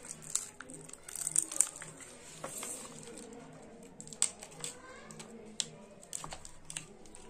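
Crinkling and crackling of a small chocolate biscuit's wrapper being peeled open by hand, in scattered sharp crackles.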